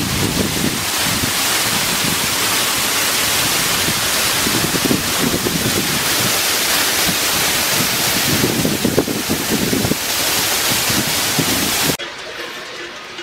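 Shallow mountain stream rippling over gravel and rocks, a loud steady hiss, with wind buffeting the microphone in low irregular rumbles. About twelve seconds in it cuts off abruptly to a much quieter background.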